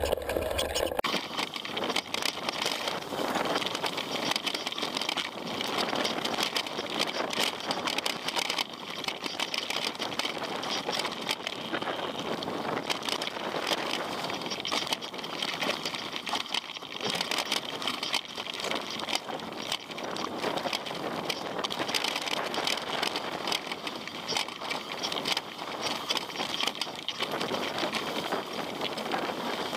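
Mountain bike riding down a rocky trail: continuous clattering and rattling of the tyres, chain and frame over stones and roots.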